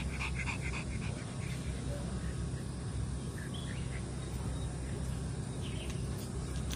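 Outdoor background with a steady low rumble and birds chirping: a quick run of chirps in the first second, then a few short single chirps.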